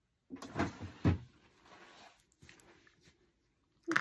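Knocks and rattles of things being handled while rummaging for a pen, loudest about half a second to a second in, then faint handling noise and a sharp click near the end.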